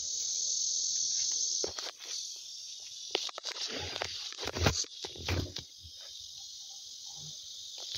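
A steady, high-pitched chorus of insects, with fingers rubbing and knocking against the phone several times in the middle.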